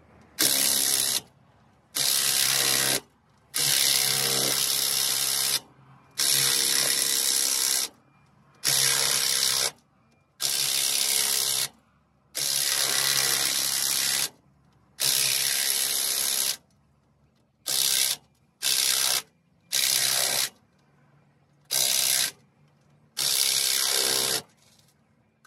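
DeWalt cordless impact wrench running bolts on the rear wheel hub of a GMC C5500 truck, in about fourteen trigger bursts of half a second to two seconds each, the later ones shorter. The bolts are being driven down as the hub and brake rotor are put back together.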